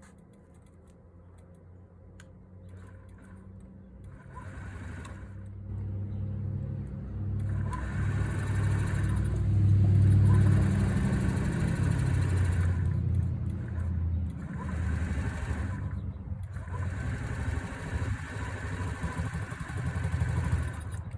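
2020 Honda Ruckus scooter's small single-cylinder four-stroke engine starting and running, at first faintly, then steadily from about five seconds in, loudest around ten seconds in. It is freshly restarted after a tune-up and being warmed up for an oil change.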